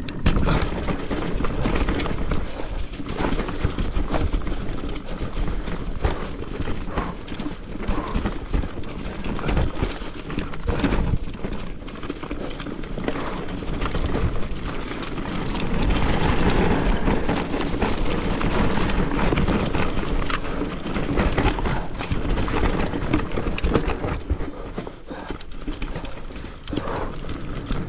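Marin Rift Zone 3 mountain bike riding fast down forest singletrack. The tyres roll over dirt, roots and leaf litter with a steady rush, and the bike knocks and rattles irregularly over the bumps.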